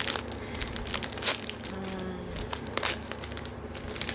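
Snack-pack wrapper of wafer cookies crinkling and crackling as it is handled and worked at to open, with sharper crackles about a second in and just before three seconds.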